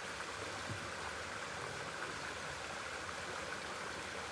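Small brook running over a little waterfall: a steady rush of flowing water.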